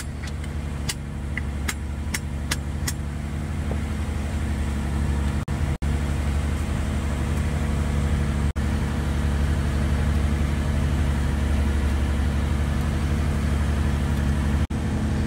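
Fishing boat's engine running steadily, a low drone with a steady hum. A few sharp clicks come in the first three seconds.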